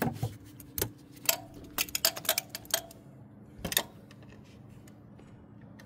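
Sharp metallic clicks from a socket wrench being worked on a mounting bolt in the engine bay, coming in short, irregular runs. They stop about four seconds in.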